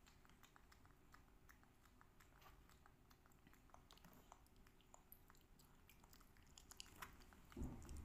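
Faint eating sounds: scattered small clicks of spoons against plastic cups, with soft chewing, and a low bump near the end.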